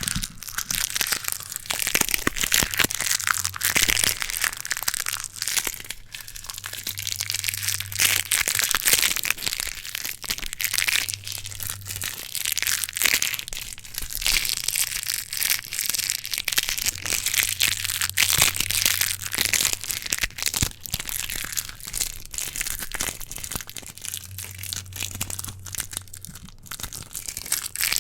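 Sticky tape crunched and crinkled directly against a bare microphone: a dense, continuous crackling full of sharp clicks, close and loud.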